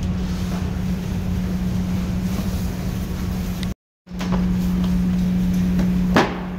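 A steady low machine hum with one constant pitch and a rumble beneath it. It cuts out for a moment a little before four seconds in and then resumes, with a short knock near the end.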